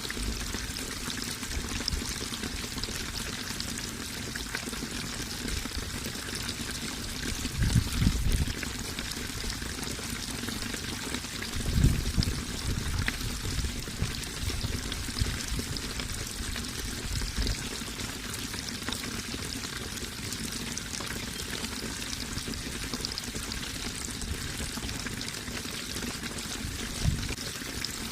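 Running water pouring and trickling steadily, with a few brief louder low surges about 8 and 12 seconds in and again near the end.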